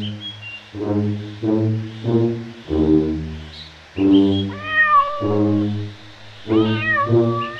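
Slow music of low brass notes, one after another, with a cat meowing twice over it: a long bending meow about halfway through and another near the end.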